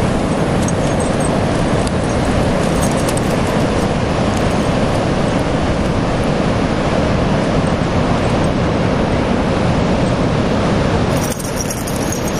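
Pacific Ocean surf breaking and washing up a sandy beach: a loud, steady rush of noise.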